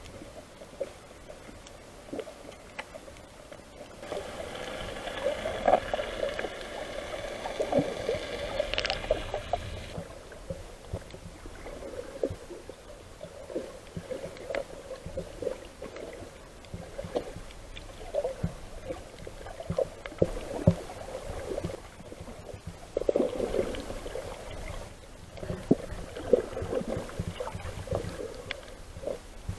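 Underwater sound picked up by a camera in the sea: muffled water movement full of small clicks and crackles, with a pitched hum that comes in about four seconds in and fades out after about six seconds.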